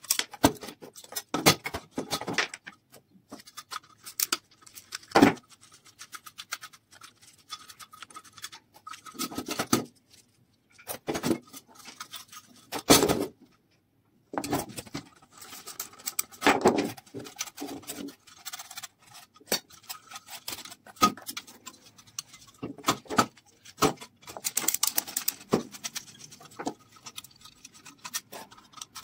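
Sheet-metal parts of an old electric room heater being handled and taken apart by hand: irregular clinks, knocks and scrapes of metal brackets, strips and screws against the casing and workbench, with a short break about halfway through.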